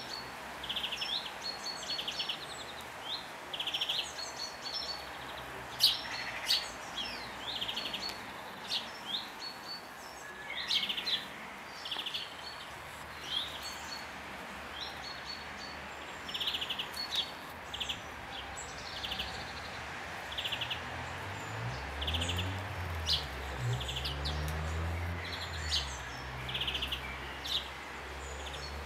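Young blue tits calling: short, high chirps and brief buzzy calls, repeated every second or so. A low rumble swells and fades in the second half.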